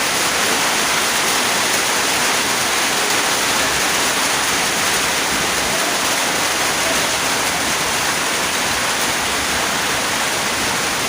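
Steady rain falling: a dense, even hiss with no single drops standing out.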